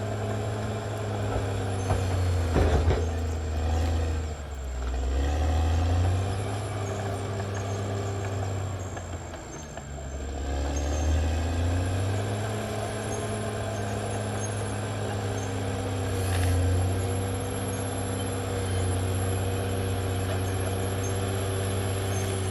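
Caterpillar D6R XL bulldozer's diesel engine running under varying load, its pitch dipping and climbing again several times as it works, with a short burst of metallic clanking about three seconds in.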